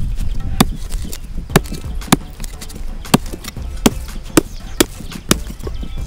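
About eight sharp strikes, spaced irregularly half a second to a second apart, like blows of a hand tool, over a steady low rumble.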